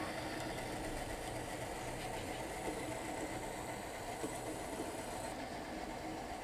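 HO-scale model diesel switcher locomotives running along the layout track, a steady mechanical running sound.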